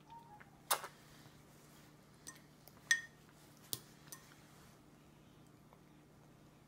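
A toddler's fork clinking and knocking against a glass food container and the plastic high-chair tray. There are about six sharp clinks over three and a half seconds, one with a short glassy ring.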